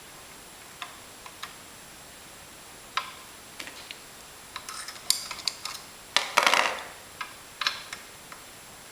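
Small metal parts clicking and clinking against each other as the RV-7 control stick assembly, with its bolt, washers and bushing, is worked into its bulkhead brackets: scattered light taps, with a short rattle about two-thirds of the way through.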